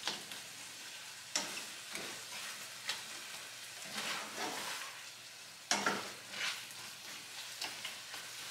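Sauce-coated chicken and zucchini sizzling in a nonstick frying pan over high heat, stirred with a plastic spatula that scrapes and clacks against the pan at irregular intervals, most loudly about six seconds in. The heat is turned up to caramelize the sauce.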